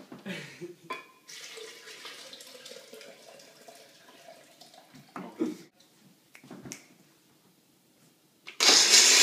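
Rice and water poured from a glass bowl into a blender jar, splashing for a few seconds. Near the end the countertop blender is switched on and runs loudly, grinding the soaked rice.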